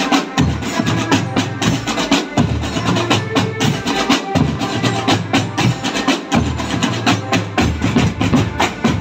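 Marching drum band playing: snare drums, tenor drums and bass drums struck together in a fast, steady rhythm.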